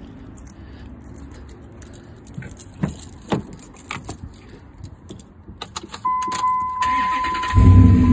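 Keys jangle and click, then a Ram 2500 pickup's steady dashboard warning chime comes on. The engine cranks and starts near the end, running on its freshly patched exhaust.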